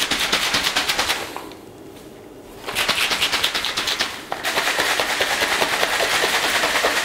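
Shaker bottle with protein-gainer powder and water being shaken hard, giving a fast rattle of knocks. The shaking pauses for about a second a little after the start, then resumes until the end.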